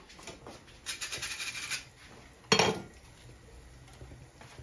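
About a second of crisp rustling as fried dough cookies and paper towel are handled on a glass plate, then a single sharp clack of dishware about two and a half seconds in.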